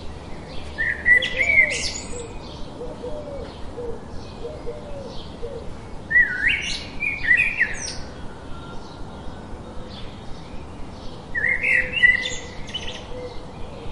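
Birds singing: a loud warbling phrase of rising and bending notes comes three times, about five seconds apart, over a steady run of short quick chirps and some softer, lower calls.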